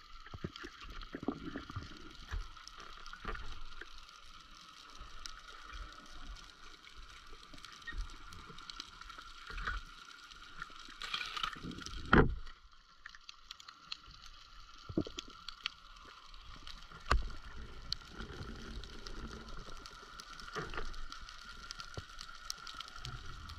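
Underwater sound picked up through a GoPro's waterproof housing on a spearfishing dive: a steady hiss with a high steady hum, scattered clicks and knocks, and one sharper, louder knock about twelve seconds in.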